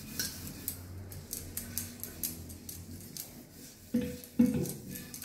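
Hand scrubbing the outside of a copper pot, a rapid scratchy rubbing. About four seconds in, the pot knocks twice with a brief metallic ring.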